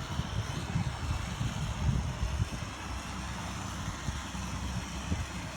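Wind buffeting the microphone in uneven low gusts, over the faint steady buzz of a small drone's propellers.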